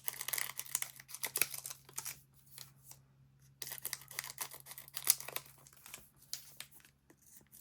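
Crinkly plastic packaging, such as foil booster-pack wrappers, being handled and torn open by hand: rapid crackling in two stretches, with a short pause about three seconds in.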